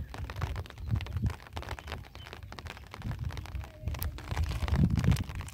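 Wind buffeting the microphone in uneven low rumbles that swell and fade, loudest near the end, over light scattered ticks of rain.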